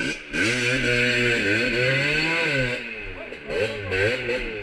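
Small motorcycle engine revving hard. Its pitch swells and falls through one long pull, then comes in a few shorter throttle bursts near the end.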